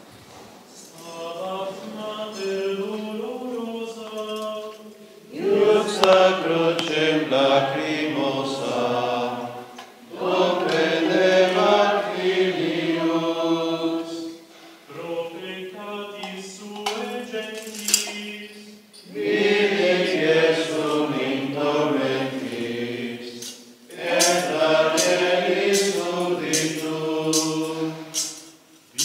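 Men's voices singing a slow hymn in unison, chant-like, in phrases of about four to five seconds with short breaths between them. A few sharp metallic clicks come through, one about two-thirds in and several near the end.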